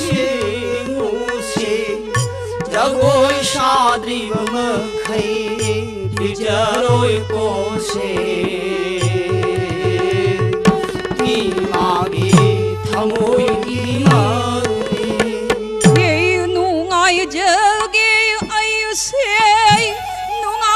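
Manipuri devotional singing with harmonium: voices sing wavering lines over the harmonium's steady held note, while a hand-played pung (Manipuri barrel drum) strikes along, its deep strokes sliding down in pitch.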